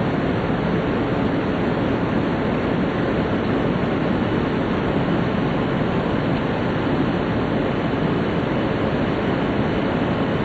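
Steady rushing noise of a Tōhoku Shinkansen Hayate (E2 series) running at speed, heard inside the passenger cabin.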